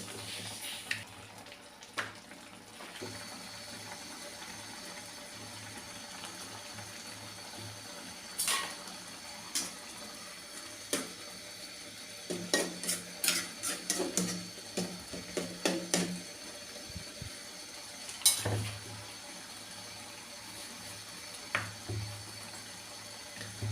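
A cooking utensil clinking and scraping against a pot, a few scattered strikes and then a quick run of clinks for several seconds in the middle, over a steady low hum.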